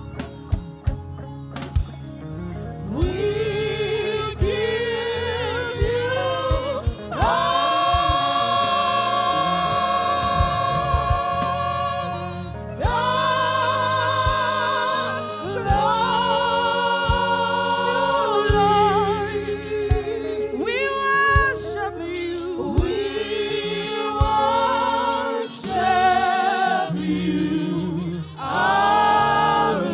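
Gospel choir singing a slow worship song with long held notes and vibrato, over instrumental accompaniment with percussive hits in the first few seconds.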